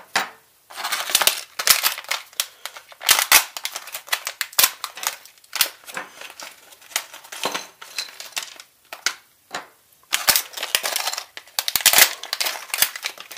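Clear plastic parts bags crinkling and rustling in irregular bursts as they are handled and pulled open.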